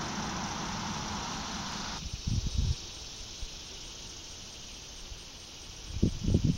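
Meadow ambience with a faint steady high chirring of insects. A broad rumble stops abruptly about two seconds in. Low gusts of wind buffet the microphone briefly a little later and again near the end.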